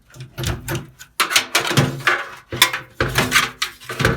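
Knocks and clatter of a PC power supply unit and its cables being worked loose and pulled out of a metal computer case, several irregular bangs and scrapes.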